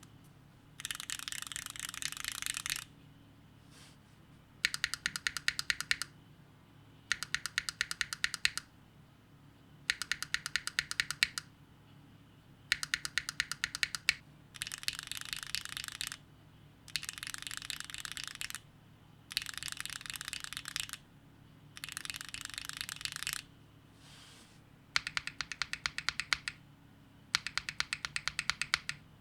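Linear mechanical keyboard switches in a Neo60 Core keyboard, Gateron Khonsu and then HMX Snow Crash, typed in bursts of rapid keystrokes about two seconds long with short pauses between. Some bursts are rows of distinct sharp clacks, others a dense run of strokes.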